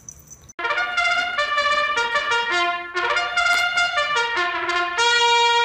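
Music: a quick melody of short notes on a trumpet-like brass instrument, starting about half a second in and ending on a long held note.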